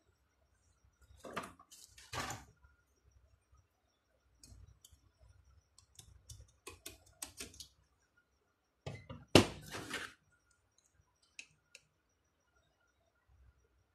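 A Lexus LS430 alternator and metal hand tools handled on a concrete floor: scattered clicks and scrapes, with a sharp knock about nine seconds in, the loudest sound.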